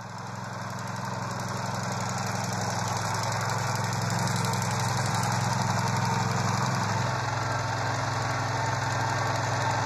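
Aebi CC66 two-wheeled motor mower's petrol engine running steadily as it mows. The sound fades in over the first couple of seconds, and the pitch shifts slightly about seven seconds in.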